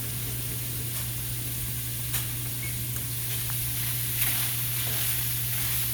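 Ground hamburger sizzling steadily in a skillet as it browns, with a few faint clicks and a steady low hum underneath.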